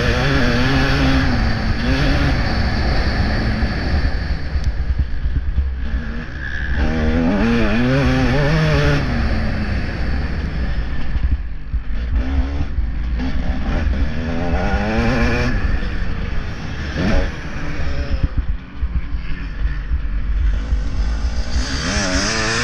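Motocross bike engine heard on board, revving hard with the pitch repeatedly climbing and dropping as the throttle opens and closes, easing off briefly a couple of times. A steady low rumble of wind on the microphone runs underneath.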